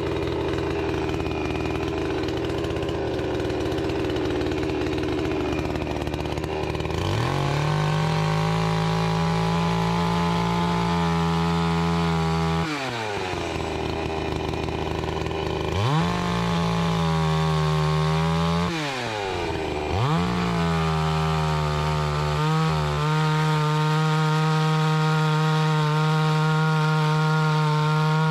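Two-stroke chainsaw running at low revs, then opened up to full throttle about a quarter of the way in. The revs dip and climb back twice before holding steady at full speed while it rips a log along the grain.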